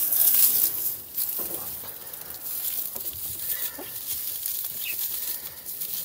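Rustling and scraping as material is handled and fitted against the side of a wire pigeon cage, with a few light knocks; the rustling is loudest in the first second.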